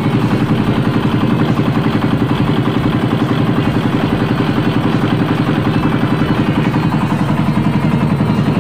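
Boat engine running steadily under way, with a fast, even throb.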